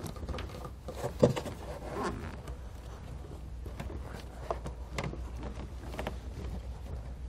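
Handling noise from a rubber vacuum hose being worked onto a plastic fitting in an engine bay: scattered soft rubbing and small clicks, with one sharper click about a second in, over a steady low hum.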